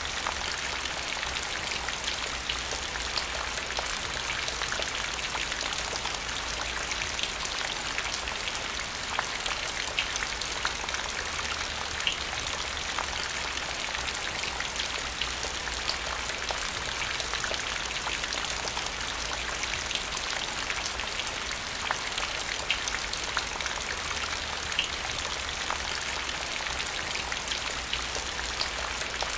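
Steady rain falling on a hard surface: an even hiss of many drops, with scattered louder individual drop splats every second or so.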